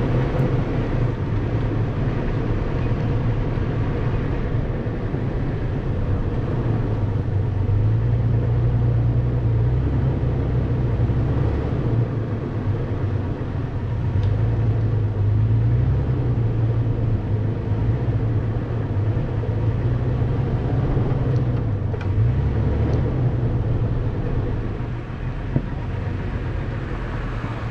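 Toyota FJ Cruiser's 4.0-litre V6 engine running under varying throttle, its note swelling and easing, with one sharp knock near the end.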